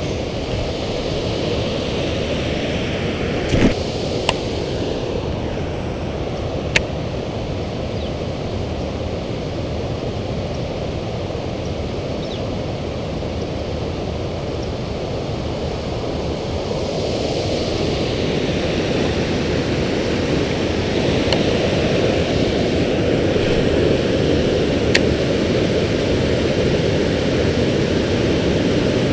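Water pouring over a river spillway, a steady rushing that swells slightly in the second half, with a few sharp clicks.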